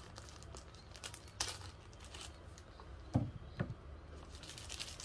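Thin plastic bag crinkling and rustling as it is opened by hand, in short scattered crackles, with two dull thumps a little after three seconds in.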